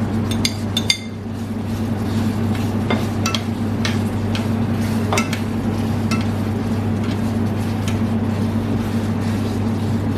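Caramel bubbling in a stainless steel pot as sliced bananas are stirred through it, with a fork clinking against the pot now and then, several times in the first second. A steady low hum runs underneath.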